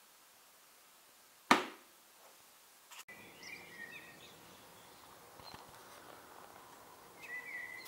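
Quiet room tone broken by a single sharp knock about a second and a half in. From about three seconds on, faint outdoor ambience with birds chirping.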